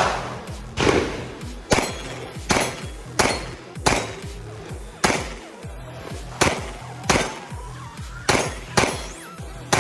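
A string of about a dozen gunshots, fired steadily at roughly one a second, each sharp crack followed by a ringing tail. Background music with a steady bass line plays underneath.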